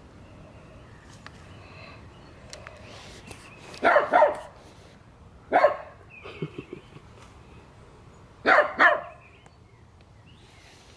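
Poodle barking in three short bursts: a quick double bark about four seconds in, a single bark soon after, and another double bark a few seconds later. It is alert barking at a deer beyond the fence.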